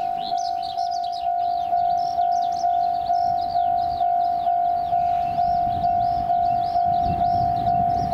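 Japanese railway level crossing alarm ringing, a steady electronic ding repeating about two and a half times a second, warning that a train is due. Birds chirp throughout, and a low rumble builds over the last few seconds.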